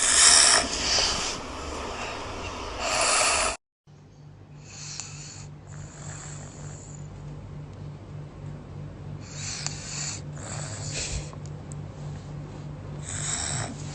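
Sleeping toddler snoring: a run of noisy snoring breaths, a second or so each, with a brief break about three and a half seconds in.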